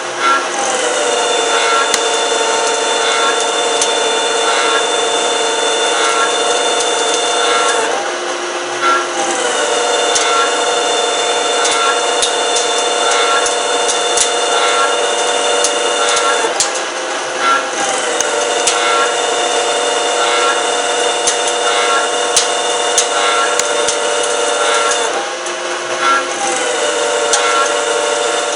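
CNC lathe machining: a steady whine of several tones with cutting noise, the pitch shifting briefly about every eight and a half seconds as the machining cycle repeats.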